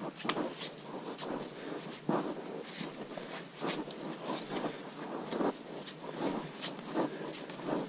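Footsteps of hikers walking on a muddy, leaf-covered trail: a run of uneven, quick steps.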